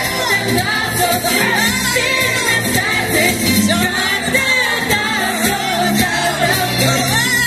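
Show music: an upbeat song with singing over full instrumental backing.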